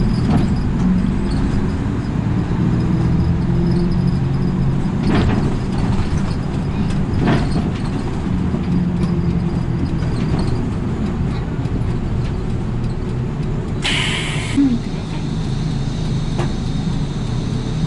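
City bus engine running and road noise heard from inside the cabin as the bus drives, with a few light knocks and rattles. About fourteen seconds in there is a short hiss of air from the bus's air system.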